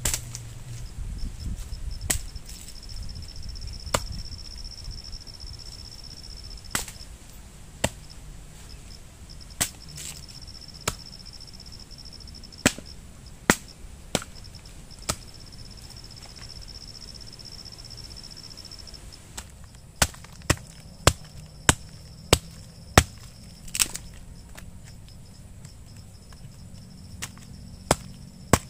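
Sharp chopping strokes, landing singly at uneven gaps and then in a quick run of about two a second around twenty seconds in. Underneath, a steady high insect trill breaks off now and then.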